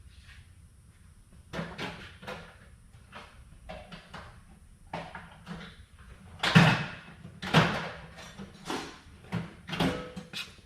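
Irregular hand scraping and rubbing strokes on rusty metal, cleaning the rust out of the front ABS sensor's mounting hole so the new sensor will slide in. The strongest stroke comes about two thirds of the way through.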